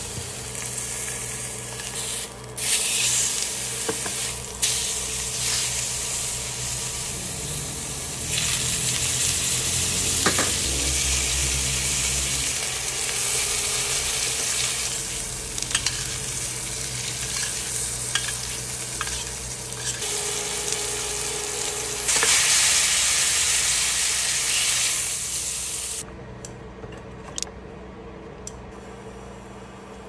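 Food sizzling in a hot frying pan, with scattered taps and scrapes of a utensil stirring it. The sizzle drops away near the end.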